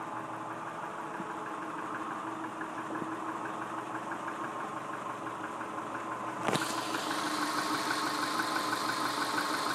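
Subaru EJ25 2.5-litre flat-four engine idling with a fast, even knocking tick, the piston slap that the owner says is evident at 180,000 miles. A single sharp knock comes about two-thirds of the way through, after which the engine sounds louder and brighter.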